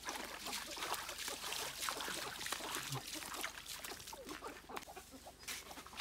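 Dry leaf litter and twigs crackling and rustling underfoot: a dense run of small, irregular crackles.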